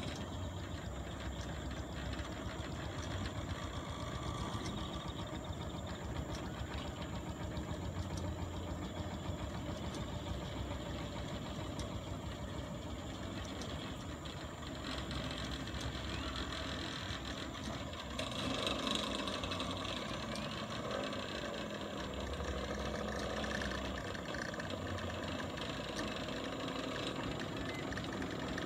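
Engine running steadily with a low rumble, the sound shifting in tone and growing a little louder about two-thirds of the way through.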